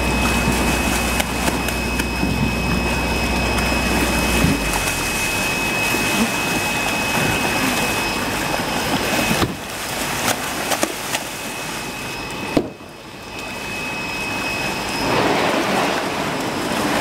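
Large fish, Asian redtail catfish among them, thrashing and splashing in shallow water as a seine net is drawn tight around them, a continuous churning splash. A low rumble runs under it and stops about four seconds in.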